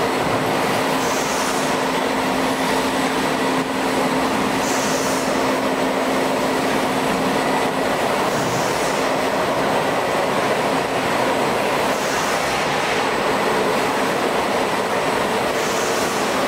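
Factory conveyor lines carrying plastic powder tubs, running with a steady mechanical noise and a low hum. A faint short hiss comes back about every three to four seconds.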